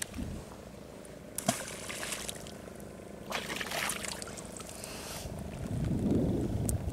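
Water splashing and trickling in two short stretches over a steady low hum from the boat, with a louder low rumble near the end.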